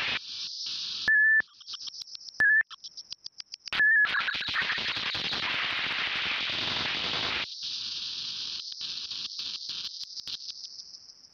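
S.709 stochastic-synthesis app on an iPad sounding as fingers drag its on-screen dots: hissing, crackling noise and rapid stuttering pulses, broken by three short, loud, steady high beeps in the first few seconds. It thins to scattered chirps and fades out near the end.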